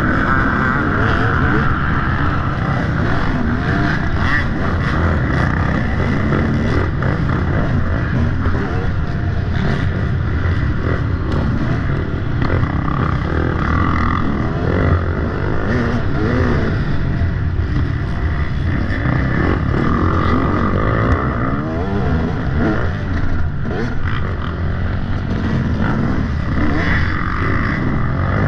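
Off-road dirt bike engine running under load, its revs rising and falling continually with the throttle and gear changes.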